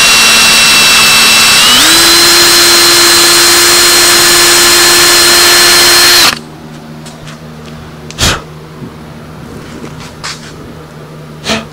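Cordless drill boring a hole through PVC pipe: the motor whines steadily, steps up in pitch about two seconds in as it speeds up once the bit has bitten, then stops suddenly about six seconds in. Two light knocks follow near the end.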